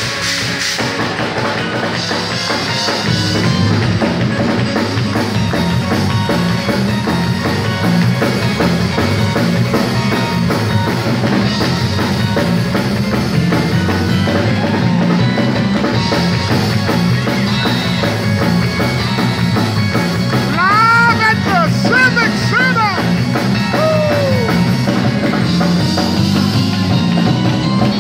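Live band music with a drum kit keeping a steady beat under a vocal group. About twenty seconds in, a lead voice sings a few short high runs that rise and fall.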